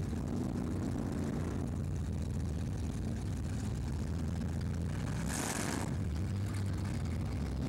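Drag-race cars' engines running at the starting line, a steady low rumble, with a short louder burst of noise about five seconds in.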